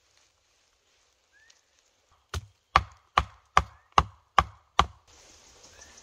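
Wood being chopped: seven sharp, evenly spaced strokes, about two and a half a second. Near the end a steady outdoor hiss starts abruptly.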